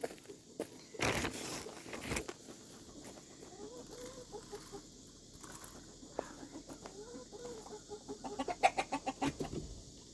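Chickens clucking, with short wavering calls in the middle. A couple of rustling bumps come early, and a quick run of sharp taps, the loudest sound, near the end.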